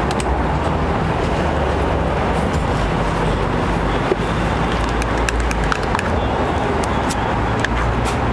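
Steady street traffic noise with a low rumble, with a few faint clicks scattered through it.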